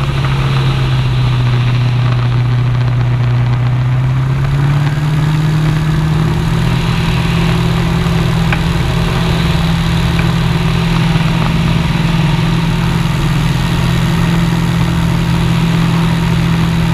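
A propeller aircraft's motor droning steadily, heard from a camera mounted on the aircraft in flight, with rushing airflow noise; the drone's pitch steps up slightly about five seconds in.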